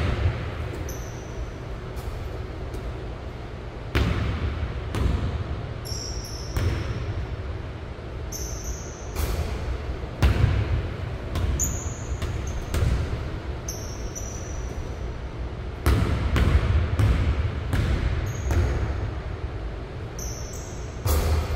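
A basketball bouncing irregularly on a hardwood court and striking the hoop, echoing in a large gym, with sneakers squeaking in short high chirps now and then.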